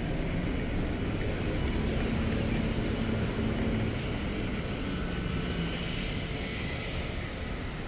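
Steady city traffic rumble from a busy road, with a vehicle engine humming for a couple of seconds partway through.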